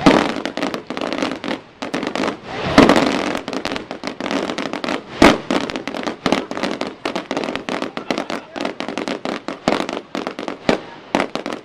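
Fireworks display: aerial shells bursting, with a dense run of rapid crackling and popping and two louder bangs about 3 and 5 seconds in.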